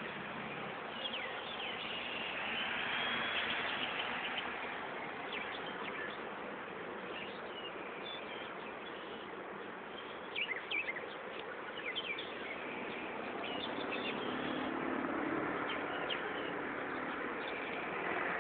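Small birds chirping here and there, in short quick calls that cluster about a second in and again about ten seconds in, over a steady outdoor hiss.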